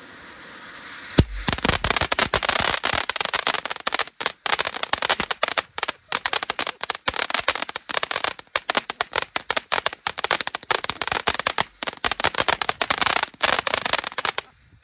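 A ground fountain firework hissing as it sprays sparks. About a second in it breaks into a dense, rapid crackling of popping sparks with brief lulls, and cuts off suddenly at the end.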